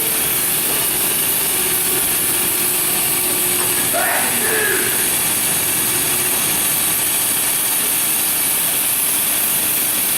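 Cincinnati EC380 grinder running steadily through a test grind, a constant high hiss over a low machine noise.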